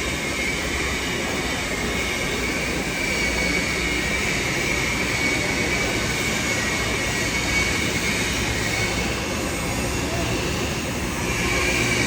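Steady hiss and hum of argon (TIG) welding on a steel pipe flange joint, with a thin steady whine running throughout.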